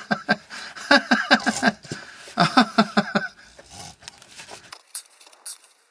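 Plastic gear oil bottle being squeezed empty into the differential fill hole, air and oil sputtering out of the nozzle in squawking, bleating bursts, three times, dying away near the end.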